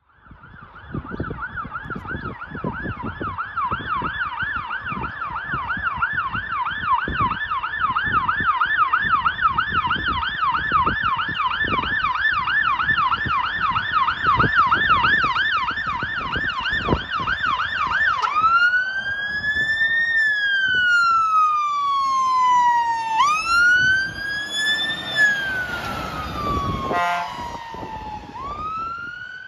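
Fire engine's electronic siren on a fast yelp, switching about two-thirds of the way through to a slow rising-and-falling wail as it passes.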